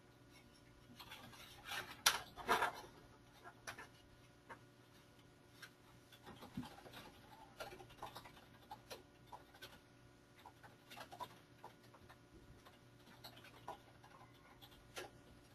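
Faint, irregular small clicks and rustles over a low steady hum, with a louder cluster of them about two seconds in.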